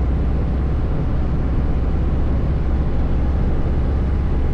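Kawasaki Voyager 1700's V-twin engine running steadily under way, mixed with heavy wind noise on the microphone. The sound holds steady throughout.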